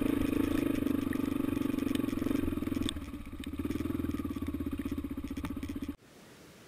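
Dirt bike engine running while riding, a steady pulsing note that eases off about three seconds in and then picks up again. It cuts off suddenly near the end.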